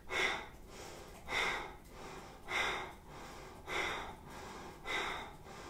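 Five sharp, forceful exhales through the nose, about one every 1.2 seconds, each as the belly pulls in, with faint in-breaths between: a slow demonstration of Kundalini breath of fire.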